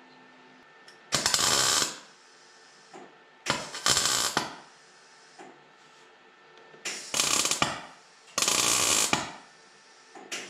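MIG welder arc crackling in four short welds of about a second each, a couple of seconds apart, with a fifth starting near the end. It is stitch-welding the sheet-steel A pillar onto the rocker panel.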